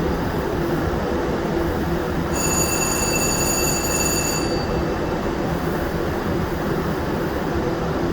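Steady rush of air and machine noise from powder-coating equipment at work, with a high thin whistle that starts about two seconds in and stops about two seconds later.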